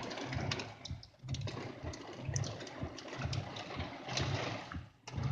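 Hail pelting a car's roof and windows, heard from inside the car: many scattered sharp ticks over a steady hiss. A low hum pulses underneath at roughly one beat a second.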